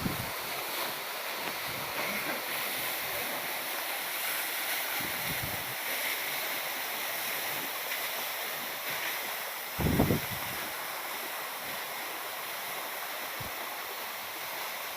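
Waterfall's water rushing in a steady, even roar, with a brief low thump about ten seconds in.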